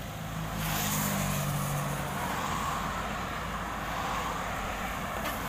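Komatsu PC78US mini excavator's diesel engine working under load as the boom lifts and swings a full bucket of soil, with traffic passing on the road.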